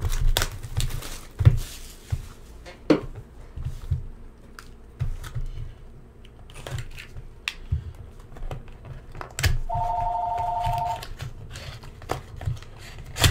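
A sealed cardboard hobby box of trading cards being handled and slit open with a small blue cutter: scattered taps, scrapes and knocks of cardboard against the table mat. About ten seconds in, a steady two-tone electronic beep sounds for about a second.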